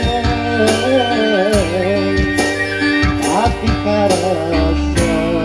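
Live Sundanese pop calung band music: a wavering keyboard-and-vocal melody over sustained chords, with a steady drum beat.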